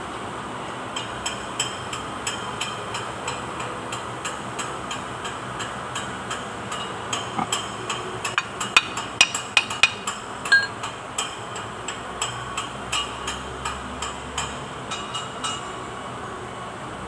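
Light, sharp metallic clicks and taps, about three a second, louder and closer together for a couple of seconds about halfway through: hand-tool work on the front axle housing of a Kubota Bultra B16 tractor while its cover is fitted.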